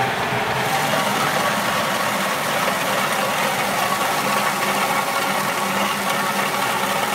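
Kadıoğlu walnut hulling machine running steadily: a motor hum under a constant wash of noise from wet walnuts churning in the drum and spilling out of the chute into a plastic crate.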